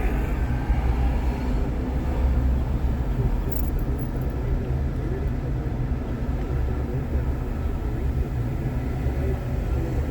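Steady low rumble of a car driving, engine and tyre noise heard inside the cabin, with a brief high hiss about three and a half seconds in.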